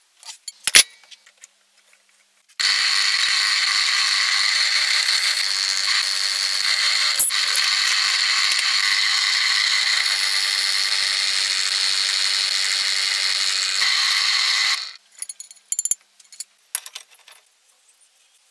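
Electric drill with a twist bit boring through a steel hinge strap: a steady whirring hiss that starts suddenly a couple of seconds in and stops about twelve seconds later. Short metallic knocks and clicks before and after.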